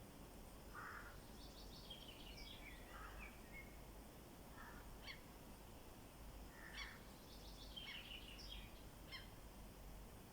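Faint songbirds calling and singing in short chirping phrases, in two bouts a few seconds apart, over a low steady background hiss.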